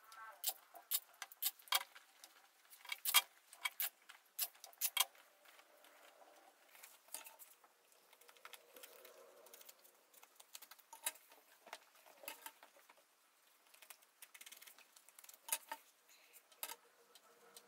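Irregular sharp clicks and taps of hand tools working on an upholstered chair seat. They come thick and fast for the first five seconds, then scattered.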